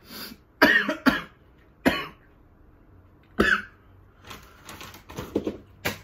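A man coughing hard with fried-batter crumbs caught in his throat from breathing in while eating fried food. There are about four sharp coughs in the first three and a half seconds, then a run of weaker coughs and throat clearing near the end.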